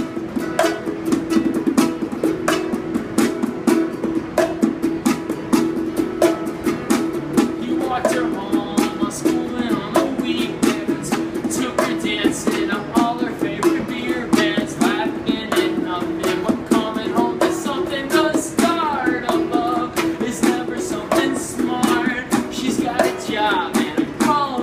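Acoustic guitar strummed along with a wooden box drummed by hand, a fast steady stream of finger taps. A man's voice sings over it from about eight seconds in.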